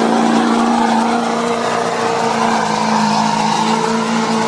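Chevrolet pulling pickup's engine running loud at high, steady revs under full load as it drags a weight-transfer sled down the track.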